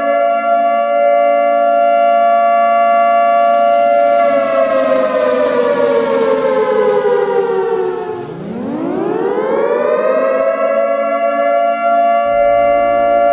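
Civil defence air-raid siren wailing: a steady pitch that slides down over about four seconds, dips low, then winds back up and holds steady again.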